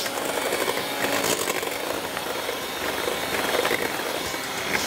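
Electric hand mixer running steadily, its beaters whirring through cake batter of butter, sugar and eggs in a stainless steel bowl, with scattered light clicks.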